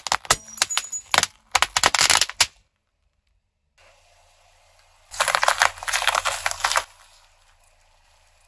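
A car tyre rolling over and crushing things. First a plate of foil-wrapped candies gives a burst of sharp cracks and crackling for about two and a half seconds. After a pause, a row of apple-shaped items with a yellow filling gives a second dense crackle, about five seconds in, lasting about two seconds.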